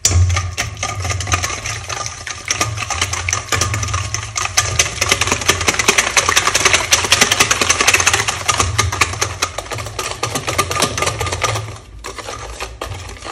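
Wire balloon whisk beating eggs, sugar and oil by hand in a stainless steel bowl: fast, even clicking and scraping of the wires against the metal bowl, stopping about twelve seconds in.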